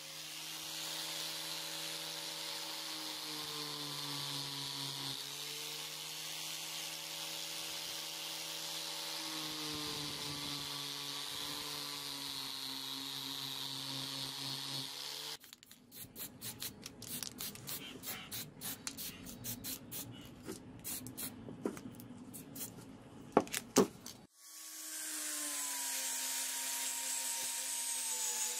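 Angle grinder with a felt buffing wheel running steadily on a brass sword guard, its hum dipping in pitch a couple of times. About halfway through the motor stops, followed by several seconds of irregular clicking and handling noise with two sharp knocks. Near the end the grinder spins up and runs again.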